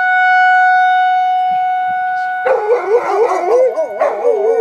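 A tornado warning siren holds one steady tone. About two and a half seconds in, American bulldogs start howling over it with a wavering pitch, in response to the siren.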